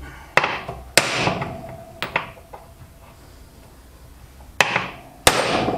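Ball-peen hammer striking a new universal joint's bearing cup held in a bench vise, driving it into the yoke. About five blows at uneven intervals, with a two-second pause in the middle, several leaving a short metallic ring. The last blow is the loudest.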